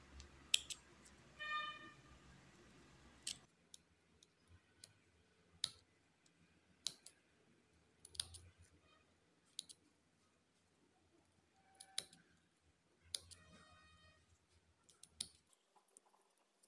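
Small embroidery scissors snipping the fabric border of an embroidered patch: single sharp snips about one to two seconds apart, quiet.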